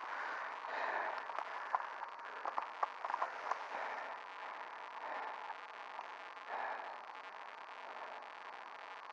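Footsteps on the forest floor, with a few sharp cracks like twigs in the first few seconds and softer shuffling after, over the steady hiss and faint whine of an old camcorder tape.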